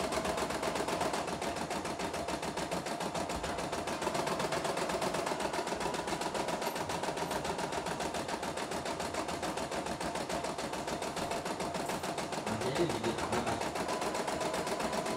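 CNY E960 computerized embroidery machine stitching a design, its needle running in a rapid, even rattle of stitches.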